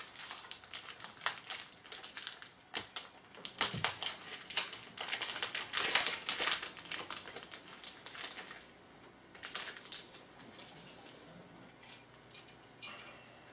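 Trading card pack wrappers crinkling and crackling as packs are torn open and handled, busiest for the first nine seconds, then only a few faint rustles.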